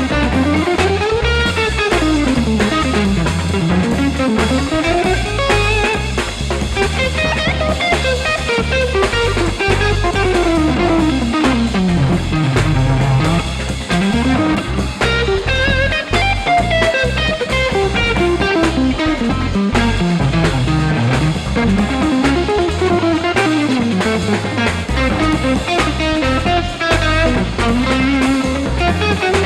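Electric guitar playing a blues solo over a backing track with a drum kit, the lead line swooping up and down in long glides.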